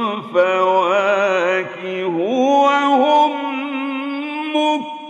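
A male Quran reciter chanting in the drawn-out, melodic mujawwad style, with long ornamented notes that turn and glide in pitch. About two seconds in, his voice rises to a higher note and holds it steadily, dipping briefly near the end.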